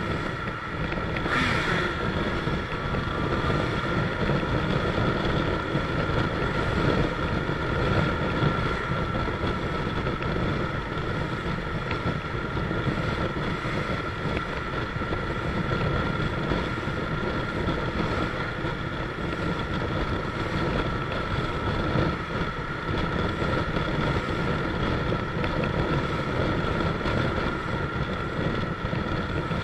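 Motorcycle engine running at steady road speed, mixed with wind noise buffeting the microphone.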